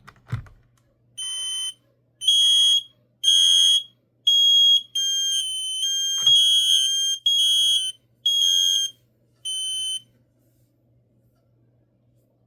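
Kidde P12040 smoke alarm sounding on test: loud, high-pitched beeps about once a second. For a couple of seconds midway, other alarm tones fill the gaps between the beeps, and a single knock sounds. The beeping stops about ten seconds in.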